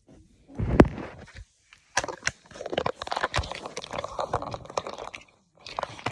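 Irregular crunching and crinkling handling noise close to the microphone, with sharp clicks among the scraping.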